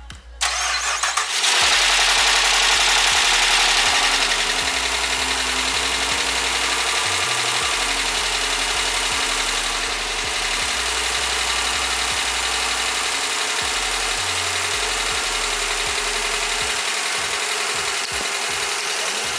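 A 2015 Dodge Challenger R/T Shaker's 5.7-litre HEMI V8 starting about half a second in, running loudest for the next few seconds, then settling to a steady idle. It runs without the knocking heard at an earlier start, which the owner takes as a sign the engine is healthy.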